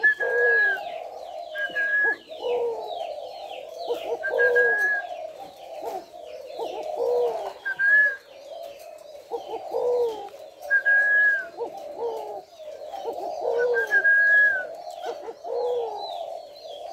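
Male white spotted dove cooing over and over in repeated phrases without a break. Higher whistled notes and quick chirps from other caged birds sound behind it.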